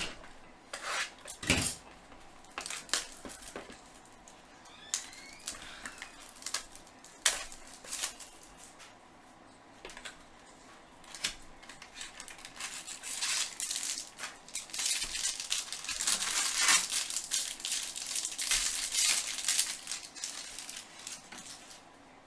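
Baseball card packs and cards being handled and opened: scattered clicks and taps of cards and packaging, then a denser stretch of crinkling and rustling in the second half.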